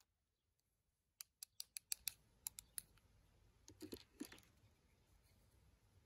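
Light plastic clicks and taps as toy utensils, a plastic spoon and fork, are handled and set down on a table: a quick run of about eight sharp clicks, then a brief soft scraping shuffle about four seconds in.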